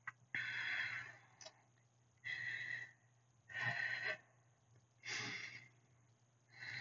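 A woman breathing audibly while holding a forearm plank: five breaths in a row, about one every second and a half.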